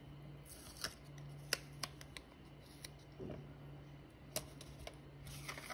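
Faint handling of a small paper die-cut with detail tweezers on a tabletop: a scattering of sharp little clicks and taps, about six of them, over a low steady hum.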